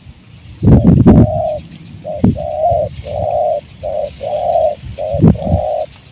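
Spotted dove cooing: a regular series of short, low, hollow coo notes, repeated about twice a second after the first second. Several low thumps break over the calls, the loudest as the cooing begins.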